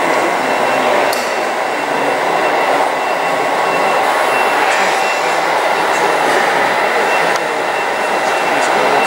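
Steady, echoing din of a large hall where radio-controlled model trucks are driving, with the whirr of their electric running gear and a few faint clicks.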